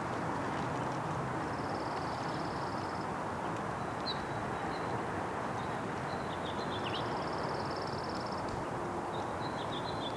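Steady background rumble of distant traffic, with short high chirps of small birds and two rapid buzzy trills, each about a second and a half long.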